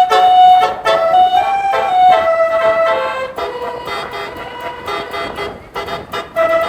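Telolet bus horn playing a tune: several horn tones sounding together and stepping from note to note, loud and fairly high-pitched, dropping a little in level and breaking off briefly near the end.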